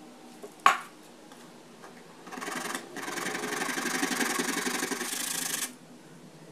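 A sharp tap about a second in, then a small wooden part rubbed back and forth by hand on a sheet of sandpaper laid flat: a short bout, a brief pause, then about three seconds of steady rasping sanding that stops near the end.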